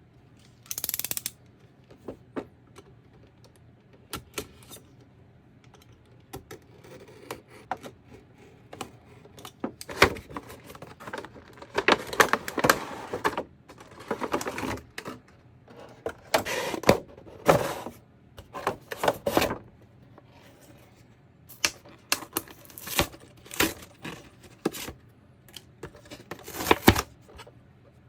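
Action figure packaging being handled: an irregular string of clicks, taps and short rustling scrapes of plastic and cardboard.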